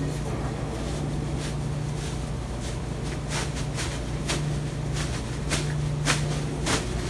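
Dexter commercial triple-load front-loading washer tumbling a load of clothes: a steady low motor hum with irregular swishes and thuds as the clothes drop and slosh in the turning drum, coming more often from about three seconds in.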